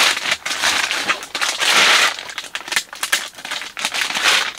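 Rustling and crinkling in irregular bursts as a brand-new folding camp cot is unpacked and handled for setting up.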